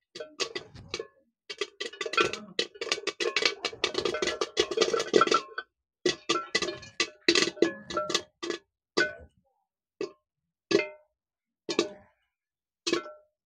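Maize kernels popping in hot oil in a kadhai under an aluminium lid, each pop with a short metallic ring as kernels strike the lid and pan. A dense run of pops gives way about halfway through to single pops a second or so apart, the batch nearly finished.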